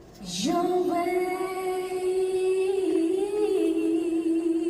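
A woman singing unaccompanied: one long held note that scoops up into pitch about half a second in and gains vibrato in its second half.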